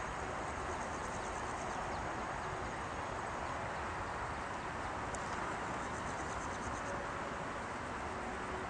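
Steady rushing noise of a distant Airbus A320 airliner's two jet engines on final approach at low power, with faint, rapid, high insect chirping twice.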